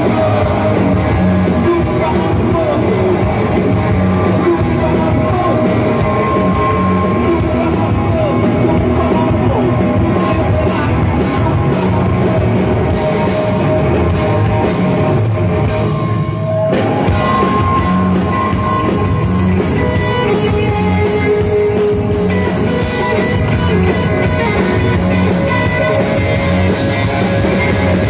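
Live rock band playing loud through a PA: distorted electric guitars, bass and a drum kit, with a voice singing over them.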